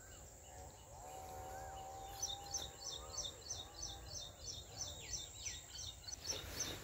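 A small bird calling outdoors: a short high chirp repeated over and over, about three or four a second, starting about two seconds in, with a couple of lower falling notes near the end. A faint drawn-out tone sounds in the distance early on.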